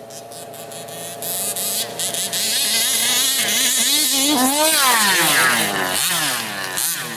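Small two-stroke petrol engine of a large-scale FG Baja RC buggy running, first at a steady pitch, then rising and falling repeatedly as it accelerates and backs off from about three seconds in.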